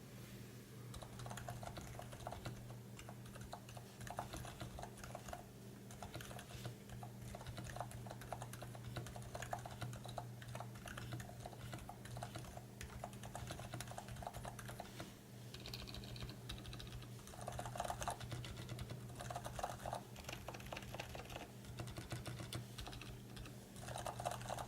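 Continuous typing on a Durgod Taurus K320 mechanical keyboard with lubed Gateron Silent Brown switches and O-rings on its doubleshot PBT keycaps, set on a felt pad: a steady stream of rapid keystrokes.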